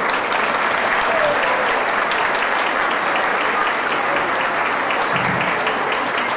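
Audience applauding steadily, a dense patter of many hands clapping at the end of a dance number.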